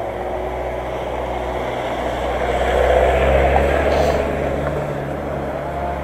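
A motor vehicle passing by: a low engine rumble and road noise that grow louder to a peak about three seconds in, then fade.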